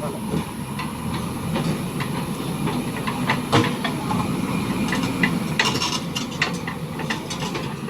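JCB 3DX backhoe loader's diesel engine running under load, with repeated metallic clanks and knocks from the machine's working parts as the bucket works the concrete.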